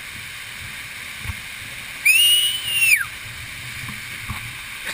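A person's loud, high whistle lasting about a second, rising at the start and dropping away at the end, over the steady rush of a waterfall.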